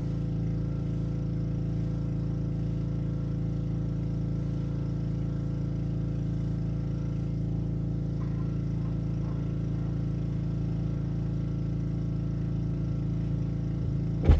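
Black Max pressure washer's Honda single-cylinder engine running at a steady speed, with a brief thump near the end.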